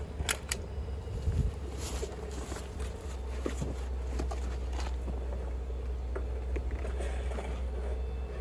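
A stapler fastening roofing paper to a wooden board: two sharp snaps about a quarter second apart near the start, then scattered lighter clicks and knocks over a steady low hum.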